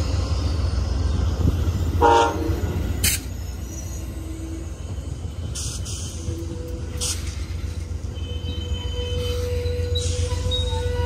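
Amtrak Superliner passenger cars rolling past with a steady low rumble. A short pitched tone sounds about two seconds in, and a few sharp clicks come from the moving train.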